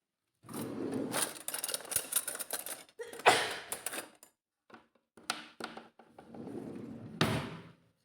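Kitchen clatter of dishes, utensils and knocks, with a woman's sneeze from another room near the end.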